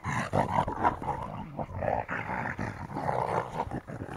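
Two dogs growling at each other as they play-fight, in rough, swelling bouts with no break.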